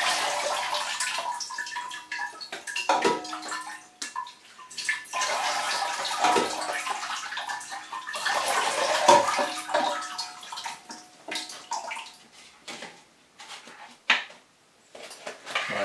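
Water poured from a small jug into an orchid pot of bark held over a plastic bowl, splashing and trickling through into the bowl. It comes in two long spells with a short break about four seconds in, fades away, and a short knock follows near the end.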